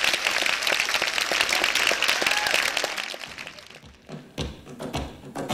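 Audience applauding, dying away about three seconds in, followed by a few low thumps.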